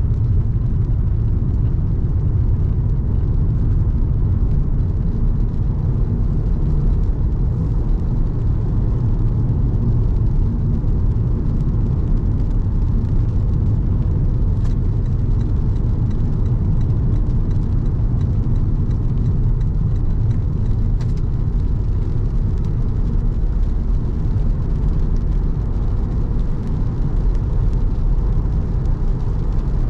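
Car driving on a wet road: a steady low rumble of engine and tyre noise that holds level throughout.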